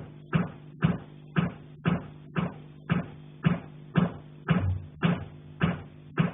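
Knocking on a pipe, a steady rhythm of about two knocks a second, over a continuous low hum.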